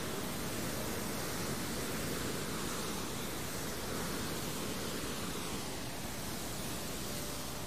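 Steady rushing noise of wind and sea on open water, with low rumble from wind on the microphone; it starts and stops abruptly with the footage.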